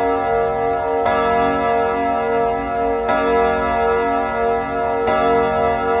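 Odo 36/8 French wall clock chiming on its set of steel channel gong rods, with a hammer stroke about every two seconds. Each stroke rings on in clear, deep tones that hang on and waver slowly under the next.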